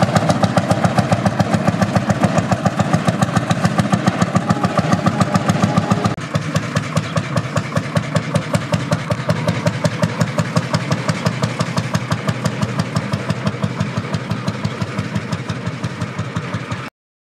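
1937 Lanz Bulldog Model N tractor's single-cylinder two-stroke hot-bulb engine running as the tractor drives along, with a rapid, even beat of exhaust pulses. The sound drops suddenly in level about six seconds in and cuts off abruptly just before the end.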